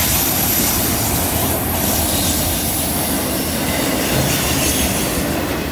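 Freight train's autorack cars rolling past on a curve: a steady, loud rush of steel wheels on rail with a thin, high flange squeal from the wheels in the curve.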